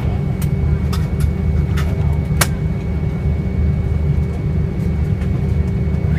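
Airliner cabin noise while taxiing: a steady low rumble with a steady engine hum over it and a few light clicks, the strongest about two and a half seconds in.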